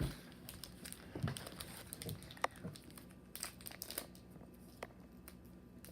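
Plastic snack wrapper crinkling and tearing as a hazelnut wafer's package is opened, with irregular sharp crackles; the sharpest comes about halfway through.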